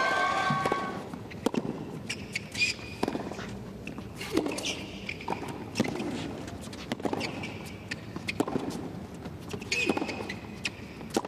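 Tennis balls struck with racquets during baseline rallies on a hard court: sharp pops about every second or so, back and forth between the players.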